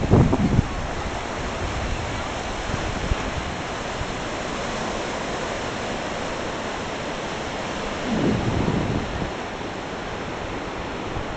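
Surf washing up a sandy beach, a steady rushing hiss, with wind buffeting the microphone in low gusts near the start and again about eight seconds in.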